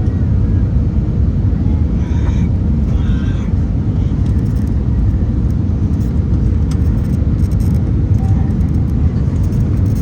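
Steady low rumble of an Airbus A319-100 airliner taxiing after landing, with faint voices about two seconds in.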